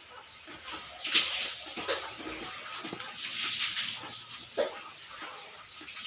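Water splashing in uneven bursts, with a few light knocks in between.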